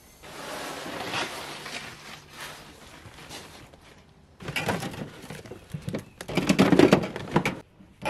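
Rustling of packing as bags and a cardboard box go into a car's boot, then, from about halfway, a busy clatter of knocks and rattles from goods being loaded in, drink cans among them.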